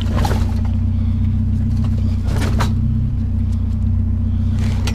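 A vehicle engine idling steadily, with three short clatters as items are shifted about in the back.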